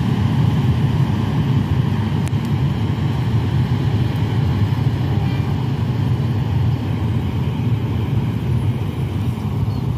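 Wind buffeting the microphone in an open field: a steady, fluttering low rumble.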